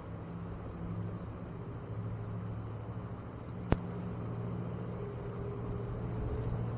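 Steady low mechanical hum, like a distant engine, with one sharp click a little before four seconds in.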